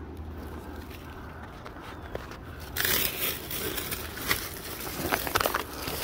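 Crunching and crackling of footsteps on dry leaves and loose ground, starting about three seconds in, over a low steady rumble.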